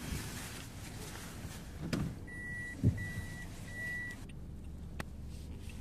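Inside a car: three short high electronic warning beeps from the car's chime, evenly spaced and lasting about two seconds in all. A dull thump comes near the second beep and a couple of sharp clicks sit either side, over a steady low hum of the car.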